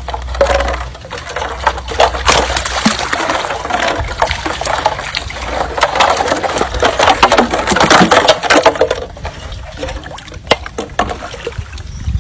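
Water splashing and sloshing, with many sharp splashes, busiest about eight seconds in.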